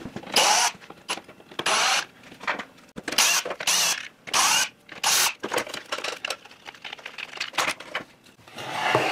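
Cordless drill-driver running in short bursts, about half a dozen in the first five seconds, backing the screws out of the miter saw motor's end cap, with clicks and rattles of metal parts being handled in between.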